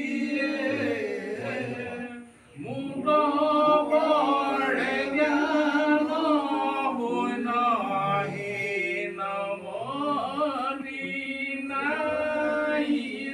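A group of men chanting a devotional song together, unaccompanied, typical of Assamese naam sung at a household sakam. The singing breaks off briefly about two and a half seconds in, then carries on.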